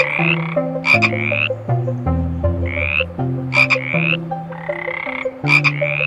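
A frog croaking over and over: about six short calls that rise in pitch, some starting with a sharp click.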